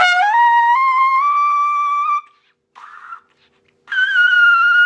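Bundy cornet played at the top of its range. A slurred note climbs upward in steps for about two seconds, there is a brief airy attempt, and then a held very high note, a double G, which shows the horn has that extreme upper register.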